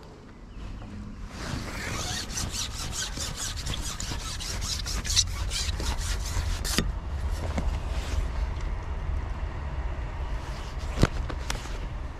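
A fishing pole being slid back out over the bank, rubbing in a quick, even rasp of about four or five strokes a second that cuts off suddenly about seven seconds in. A low rumble runs underneath, and there are a couple of single clicks later.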